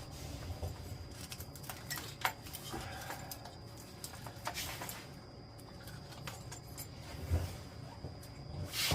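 Scattered light clicks, taps and rustling of hands working loose a Honda CL175 motorcycle's wiring harness and its plastic connectors, with a dull knock about seven seconds in.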